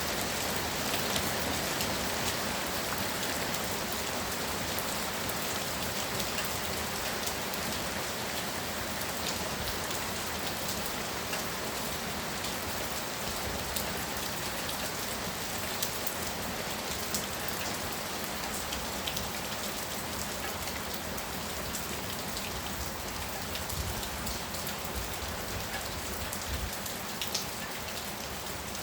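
Heavy rain falling steadily, a constant hiss with many individual drops ticking sharply on a hard surface.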